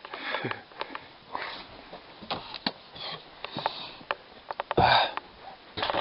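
A person sniffing and breathing in short puffs close to the microphone, the strongest about five seconds in. Light clicks and knocks are scattered between them, from handling or movement in a small wooden room.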